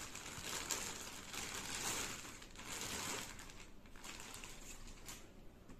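Clear plastic bag crinkling and rustling as a camera tripod is pulled out of it, busiest in the first three seconds and fainter after.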